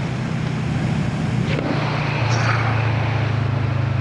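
Motorcycle engine running steadily under way, with wind and road noise; the engine note drops slightly about two seconds in.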